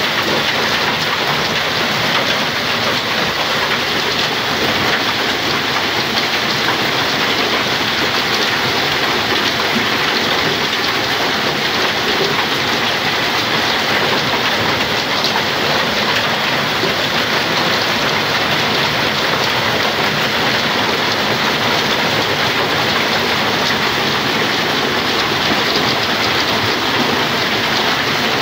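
Heavy hail mixed with rain pelting the ground and the garage roof overhead: a loud, dense, unbroken patter of countless hailstone impacts.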